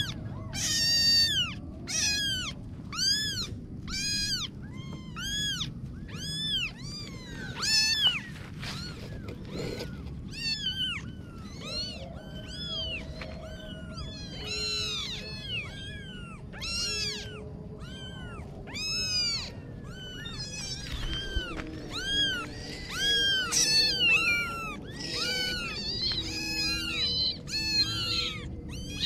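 Kittens meowing over and over in high-pitched calls that rise and fall, about one a second, crowding and overlapping near the end.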